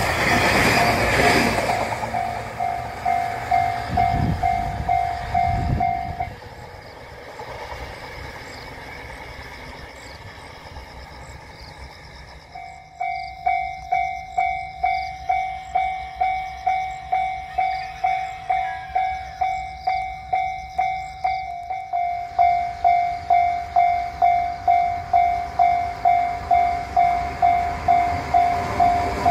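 Railway level-crossing warning bell ringing in even two-tone strokes, about two a second, warning that a train is approaching. It stops about six seconds in and starts again about thirteen seconds in. A low rumble sits under the bell in the first few seconds.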